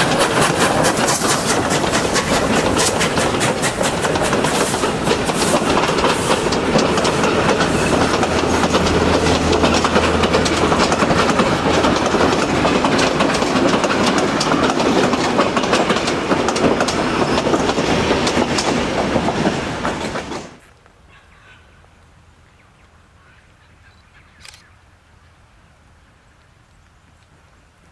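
Victorian Railways J class oil-burning steam locomotive J549 and its passenger carriages passing close by, the wheels clicking over the rail joints in a loud, dense rattle. The sound cuts off abruptly about twenty seconds in, leaving faint quiet background.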